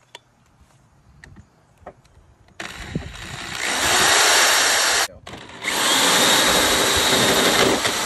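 Cordless drill driving a hole saw, cutting a hole through the van's body panel for the shore power plug. It starts about two and a half seconds in, stops abruptly for half a second near the middle, then runs again until just before the end.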